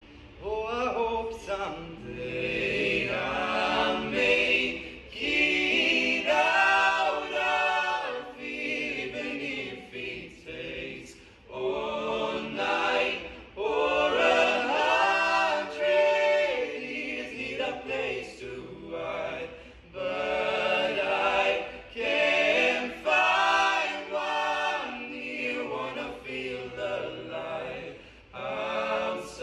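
A choir singing a cappella in long phrases of a few seconds each, with short breaks between them.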